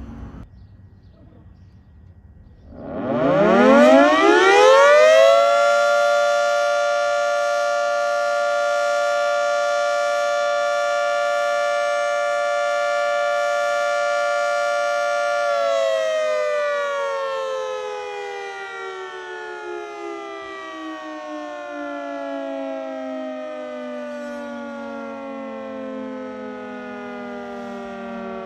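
Outdoor warning siren starting up about three seconds in, its pitch climbing fast to a steady two-note chord. The chord holds for about ten seconds, then the siren winds slowly down in pitch and is still falling at the end.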